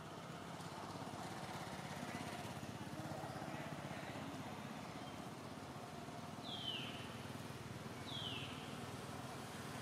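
A steady low background rumble, with two short high calls, each sliding down in pitch, about a second and a half apart near the end.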